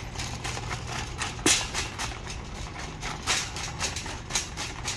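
Wire shopping cart rattling and clacking as it is pushed over a tiled floor, with sharp knocks every second or so, the loudest about one and a half seconds in.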